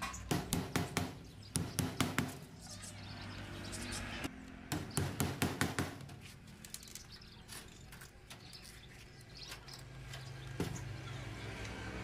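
Small claw hammer tapping nails into a wooden frame to fix a metal hinge. There are three quick runs of about five taps each in the first six seconds, then a single tap near the end.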